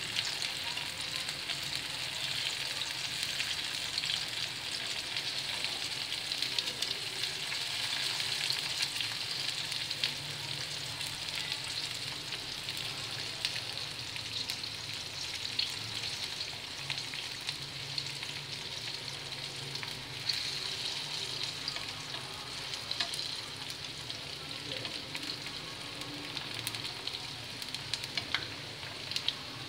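Wontons and a chicken drumstick deep-frying in a pan of hot oil: a steady sizzle with frequent small crackles and pops.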